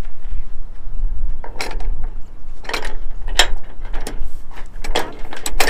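Metal boom end fitting clanking and clicking against the mast's gooseneck bracket as it is worked into line, a string of irregular sharp knocks, with wind rumbling on the microphone.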